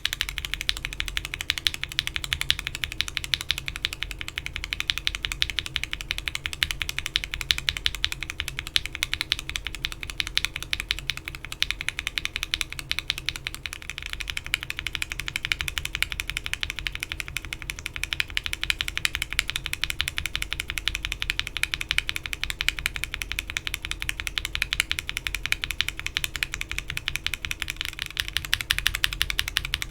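Steady, fast typing on a mechanical keyboard fitted with Alpaca linear frankenswitches on 67 g TX springs, in a Bakeneko60 with an FR4 plate and PBT keycaps. The switches carry Gateron Milky Yellow stems and then, about halfway through, Cherry MX Black stems, with keystrokes following one another closely and evenly.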